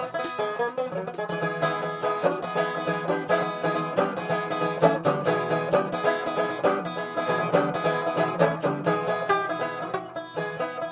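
Bluegrass-style music led by a rapidly picked banjo.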